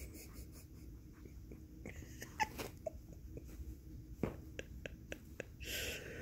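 Shih Tzu sniffing and snuffling at close range, with scattered small clicks and a louder breathy snuffle near the end.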